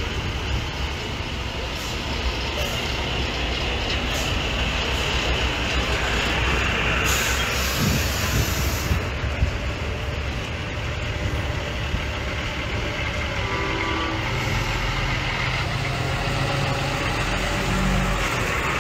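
Semi-truck race haulers driving slowly past, their diesel engines running at low speed, with a hiss of air lasting about two seconds around the middle, typical of air brakes.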